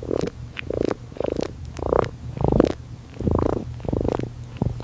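Cat purring in close-up: a rhythmic, pulsing rumble that swells and fades about every two-thirds of a second with each breath, with faint soft clicks.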